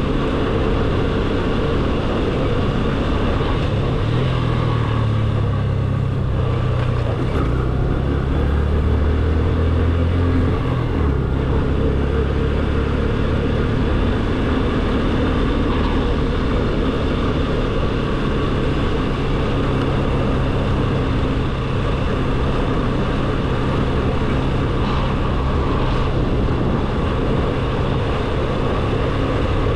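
Motorcycle engine running steadily at a low cruising speed, with wind and road noise, its low note stronger for several seconds early on.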